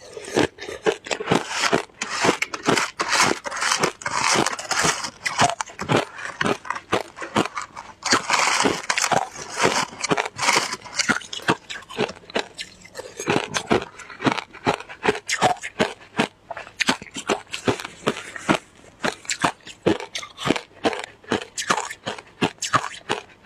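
Shaved ice being bitten and chewed close to the microphone: a rapid, continuous run of crisp crunches and crackles.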